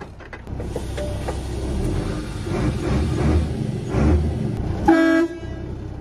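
Semi truck engine running and building in rumble over a few seconds, then a short blast of the truck's horn about five seconds in.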